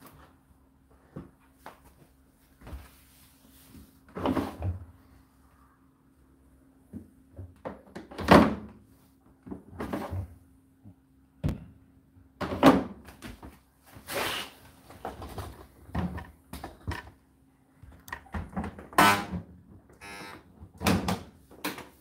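Handling noises at an Indesit condenser tumble dryer: an irregular series of knocks, thumps and rustles as the laundry and the plastic lint filter are handled and the door is shut, over a faint steady hum.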